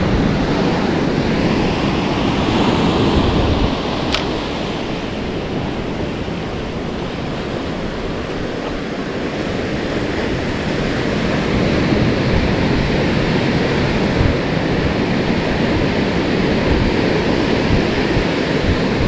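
Ocean surf washing in and out, swelling and easing, with wind buffeting the microphone. A single brief click comes about four seconds in.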